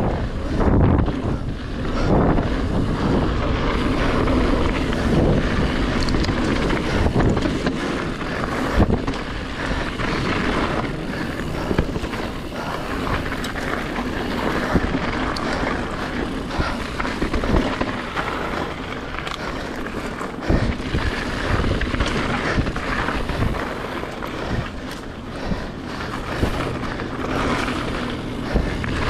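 Giant Trance X 2 full-suspension mountain bike descending fast on dirt singletrack, heard from a camera mounted on the rider or bike. Wind buffets the microphone over a constant rush of tyres on dirt and gravel, with frequent knocks and clatters as the bike rattles over bumps.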